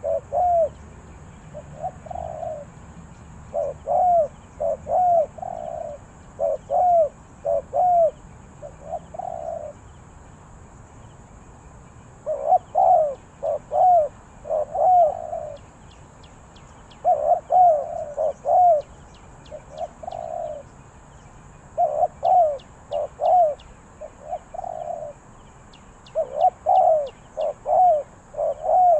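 Spotted dove cooing: repeated phrases of a few short low coos, some ending in a longer drawn-out note, a phrase every few seconds.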